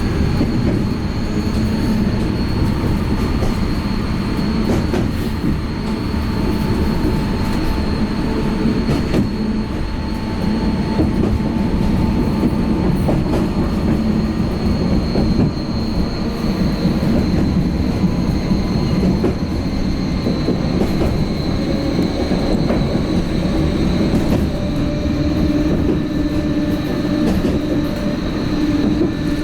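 Vossloh Tramlink light-rail tram running along the track, heard from on board: a steady rolling rumble with a thin high whine held throughout and occasional faint clicks.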